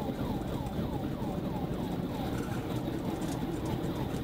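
Police car siren in a fast yelp, each sweep falling in pitch, about three a second, with the pursuing cruiser's engine and road noise underneath.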